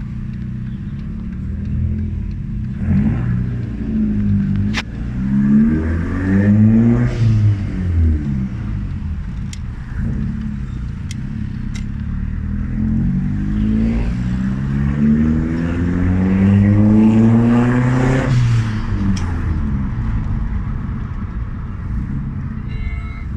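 2003 Audi A3's engine and exhaust idling and being revved by hand: a couple of quick blips about three and five seconds in, a rev up and back down shortly after, then a long steady climb in revs over about six seconds that falls back sharply to idle.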